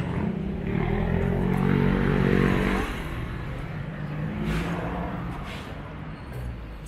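A motor vehicle's engine passing close along the street, getting louder to a peak about two seconds in and then fading, over general street traffic noise.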